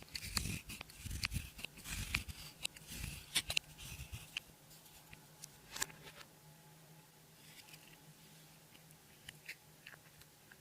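Clear slime being worked by hand, giving sticky clicks, crackles and small pops with soft scrapes. The clicks come thick and fast for the first four seconds or so, then thin out to occasional faint clicks.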